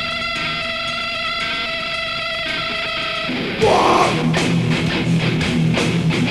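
Heavy metal band playing live through a PA: distorted electric guitars hold a ringing chord, then about three and a half seconds in the drums and guitars come in together, louder, with a heavy riff on a regular beat.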